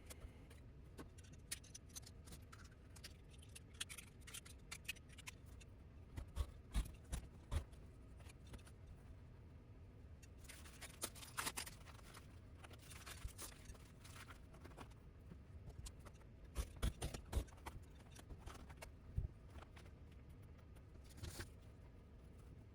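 Hand tools working on carpet during a patch repair: scattered taps and clicks with a few short scraping or cutting sounds.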